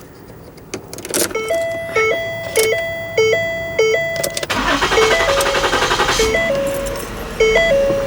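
A 2009 Ford Flex's 3.5-litre V6 cranks and starts about four and a half seconds in, then keeps running. Before and during the start, electronic dashboard warning tones beep back and forth between two pitches.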